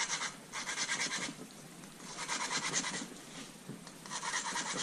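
Valve being lapped into its seat with lapping compound: a gritty grinding scratch in three bursts of about a second each, separated by short pauses.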